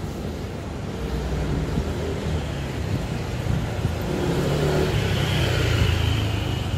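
A car engine running as the car rolls slowly closer, the rumble growing louder over the last few seconds, over general street noise.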